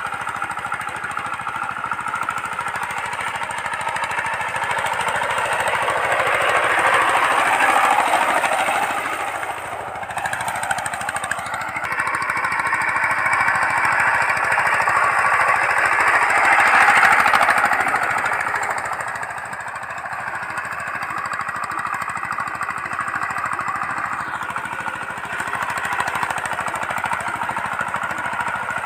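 Two-wheel walking tractor (power tiller) with a single-cylinder diesel engine running steadily under load as it drags a levelling ladder across a ploughed field. It grows louder twice, around eight and seventeen seconds in, as it passes near.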